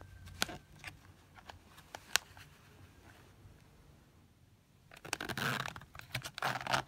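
Zipper on a fabric protective cover for a metal detector's control box being pulled, two short zipping runs about a second apart near the end, after a few light clicks of handling in the first couple of seconds.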